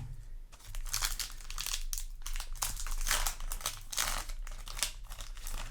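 Foil wrapper of a Yu-Gi-Oh! booster pack crinkling in the hands, in a quick run of irregular crackles as it is handled.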